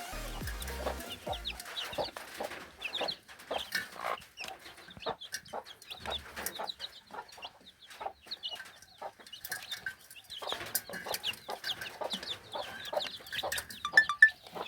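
Chickens clucking, with many short calls overlapping. Background music ends about a second in.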